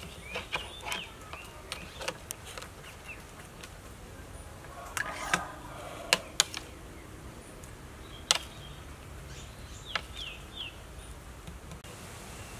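Several sharp clinks of a metal spoon against a plate, with small birds chirping in short calls in the background.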